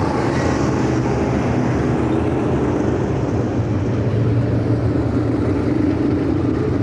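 Dirt-track race cars' V8 engines running at speed around the track, a steady, continuous drone.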